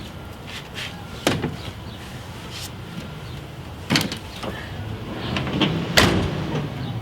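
Car door opened and slammed shut as the driver gets in, with sharp knocks about a second in and about four seconds in, and the loudest slam about six seconds in.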